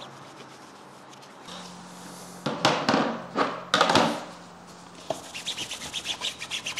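Damp microfibre cloth rubbing over a motorcycle's fairing panel: a few loud swipes between about two and a half and four seconds in, then quick short rubbing strokes, several a second, near the end.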